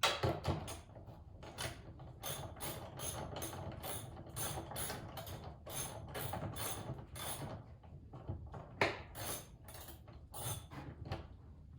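Hand ratchet wrench clicking in quick, even strokes, about three a second, as the door mirror's mounting bolts are backed out.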